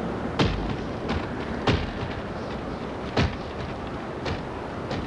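Hurricane storm sound: a steady rush of wind and rain, broken by sharp bangs about once a second or so.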